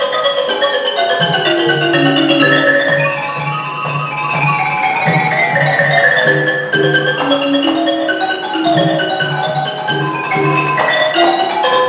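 Ranat ek, the Thai wooden xylophone, played in fast running notes, with a long falling run in the middle. Small ching cymbals keep time at about two strokes a second, and a hand drum plays beneath.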